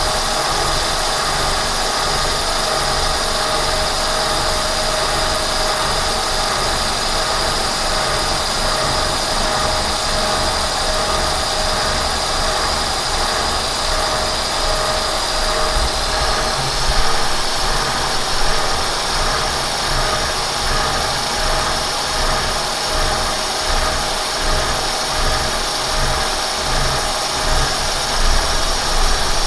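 Kearney & Trecker 307 S-12 horizontal milling machine running under power feed, its spindle gearing whining steadily while a staggered-tooth cutter takes a cut with coolant flowing. About halfway through the high whine steps up slightly and the low rumble turns more uneven.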